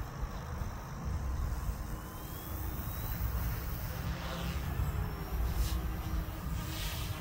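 Wind buffeting the microphone in heavy low gusts. Over it, the faint whine of a small electric RC helicopter's motors rises about two seconds in as it spools up to lift off.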